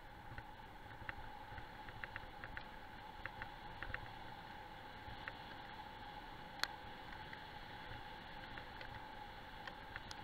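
Wheels of a dog-pulled training rig rolling over a gravel road: a faint, steady rolling noise with scattered light ticks and clicks, and one sharper click about six and a half seconds in.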